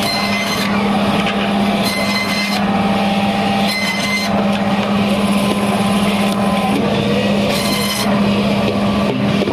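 Band saw (bone saw) motor running with a steady hum while its blade slices through fish pieces. A brief harsher rasp comes several times as the blade goes through.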